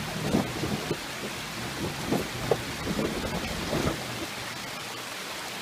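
Creek water rushing over rocks under the low rumble of a Toyota FJ Cruiser's V6 engine at crawling speed. Several short knocks come in the first four seconds as the tyres climb a boulder ledge.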